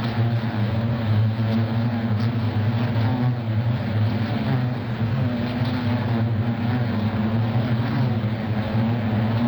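Beehive: a mass of bees buzzing together in a steady, low, droning hum that wavers slightly.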